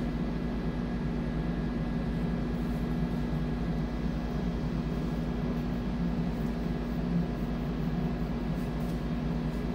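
Steady low electrical-equipment hum with a faint high whine above it, unchanging throughout.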